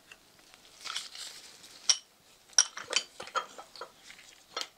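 A collet chuck with an end mill being handled and set into the spindle of an NGF-110 milling machine: a series of sharp metal clicks and taps, irregularly spaced, with a soft rustle about a second in.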